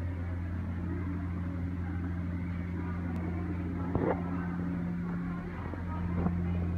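A steady low mechanical hum, with faint chatter of voices over it and a single sharp knock about four seconds in.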